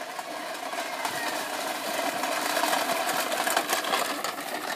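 Toy dump trucks pushed by hand, their wheels rolling and rattling over dry leaves and dirt. The clatter grows louder as they come close, peaking about three to four seconds in, then eases off.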